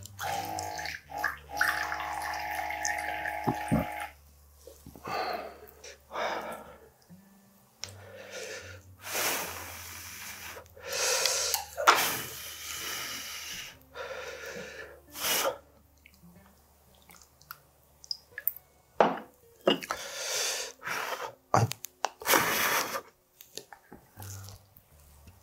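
A small electric dispenser on a soju bottle whirs steadily for about three seconds as it fills a shot glass. After that come a series of short, loud slurps and mouth sounds from eating boiled sea snails out of a hot broth, with a sip of drink near the end.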